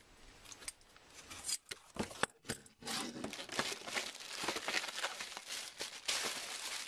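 Clear plastic bag crinkling and rustling as it is handled and pulled from a cardboard mailing box, with a few light clicks and knocks during the first two seconds before the crinkling becomes continuous from about three seconds in.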